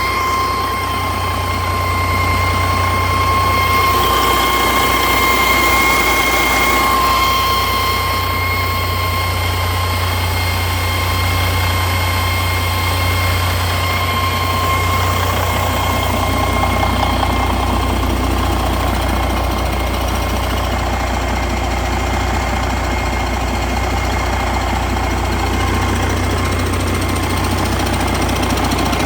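2012 Detroit DD15 14.8-litre inline-six diesel engine running steadily during a test run, a deep even rumble with a steady high whine over it that fades out about halfway through.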